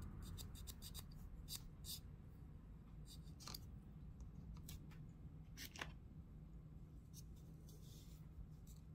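Faint, scattered clicks and scrapes of hands working small plastic parts, with a quick run of ticks near the start, over a low steady hum.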